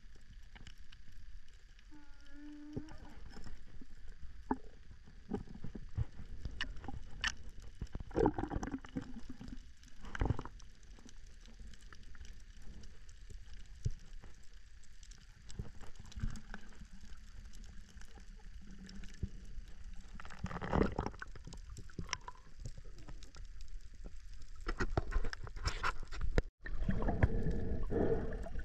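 Underwater ambience on a coral reef, heard through a camera housing: a steady low rumble scattered with sharp clicks and crackles, and bursts of water gurgling and sloshing that grow stronger near the end. The sound cuts out briefly just before the end.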